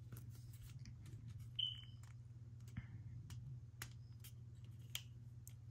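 Faint scattered clicks of fingers working at a small paper model air engine while taking a part off it, with one brief high squeak about a second and a half in, over a steady low hum.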